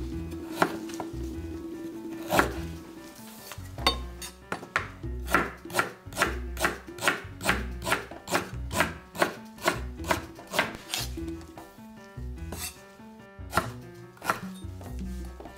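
Knife chopping on a cutting board, a few single cuts and then a steady run of about three cuts a second, thinning out to a few scattered cuts near the end.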